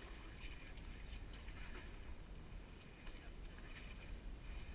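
Faint splashing and rustling as a seine net is hauled in through shallow water, with a few light ticks from the net and its floats being handled.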